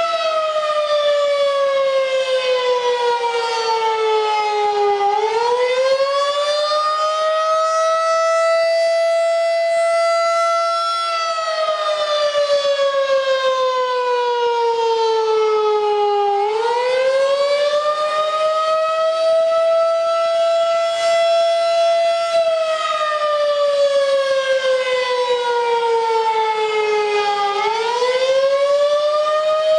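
Federal Signal 2001-SRN tornado siren sounding a wailing tone. It holds a high note for about five seconds, slides down for about five seconds, then climbs back up quickly. The tone falls three times.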